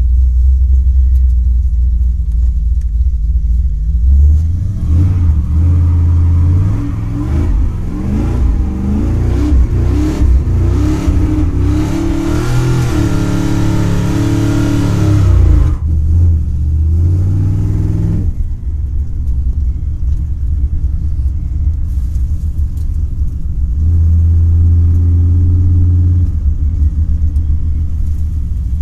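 Chevrolet 402 big-block V8 with a Comp Cams Big Mutha Thumpr camshaft and Holley 650 double-pumper carburettor, running with the rough idle this cam gives. About four seconds in it is revved up in rising stages, held high for a few seconds, dropped and let settle back to idle, with one more short rev later.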